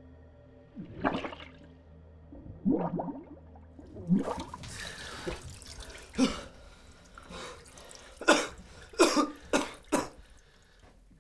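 A man's head coming up out of a barrel of water: a wash of splashing and dripping water, followed by several hard coughs and gasps for air.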